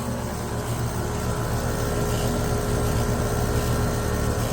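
A 25-year-old, 2-ton R22 central air conditioner running with a steady hum. The compressor is on, but the unit is low on refrigerant and is icing its line.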